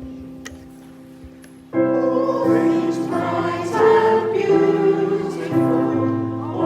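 Congregation singing a hymn with keyboard accompaniment. A held keyboard chord fades, then the voices come in together and loudly about two seconds in.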